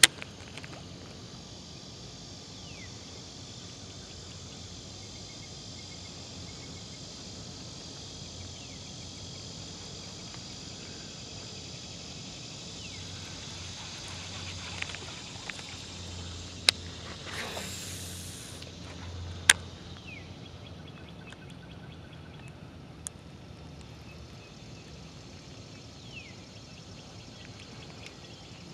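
Steady outdoor background hiss on open water, broken about two-thirds of the way in by two sharp clicks and roughly a second of high whirring from a baitcasting rod and reel being worked.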